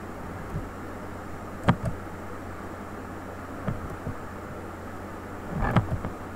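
Steady microphone hiss with a low hum, broken by a few sharp clicks and knocks a second or two apart. The loudest comes about a second and a half in, and a cluster follows near the end. These are computer mouse clicks and desk handling as the slideshow is exited.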